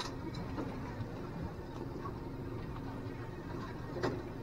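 Steady low rumble of a fishing boat's outboard motor running, with water noise against the hull. A sharp click comes at the start, and a louder knock about four seconds in.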